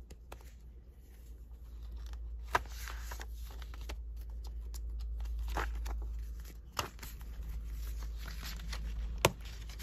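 Papers and planner pages being handled: intermittent rustling with a handful of sharp clicks, over a low steady hum.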